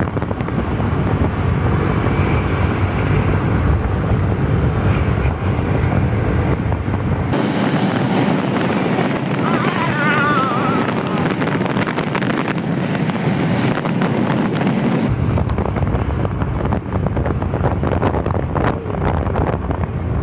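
A motor vehicle's engine running while on the move, with heavy wind buffeting the microphone. The deep rumble drops away for several seconds in the middle, then returns.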